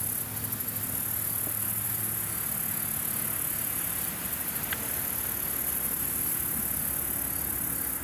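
A steady, high-pitched chorus of trilling insects, with a low steady hum underneath.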